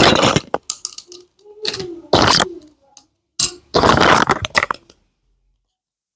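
Small plastic toy pieces and their packaging being handled during an unboxing: several short bursts of crinkling and rustling with sharp clicks, stopping about five seconds in.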